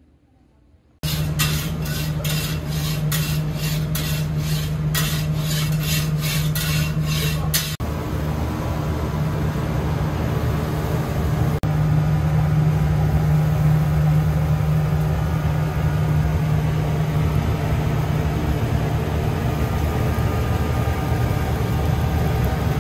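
Steady drone of a kitchen exhaust fan over a charcoal eel grill, starting suddenly after a near-silent first second. For the first several seconds, rhythmic hissing strokes, about two a second, sit on top of the drone.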